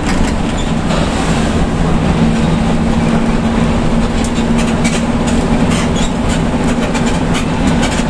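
Inside the cabin of a Hino RK intercity bus cruising at highway speed: a steady low engine drone and road noise, with frequent rattles and clicks from the body.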